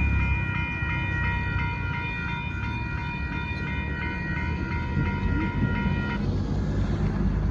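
Train rolling past with a steady low rumble. Over it, a steady high-pitched tone with several pitches rings and cuts off suddenly about six seconds in.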